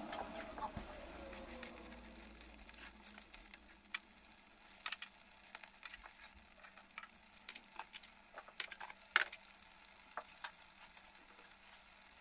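Thick sweet-sour mango pickle bubbling in a frying pan, with scattered soft pops and clicks at irregular intervals, and a spatula stirring through it midway.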